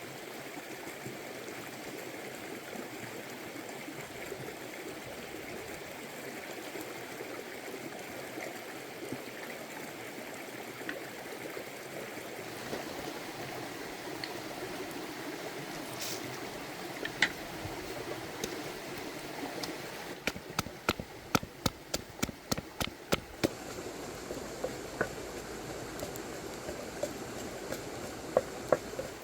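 Water running steadily, with a quick run of about a dozen sharp taps or knocks about two-thirds of the way through and a few scattered taps besides.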